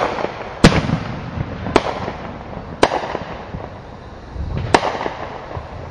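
Fireworks exploding: five sharp bangs roughly a second apart, the second one the loudest, with a haze of noise between them.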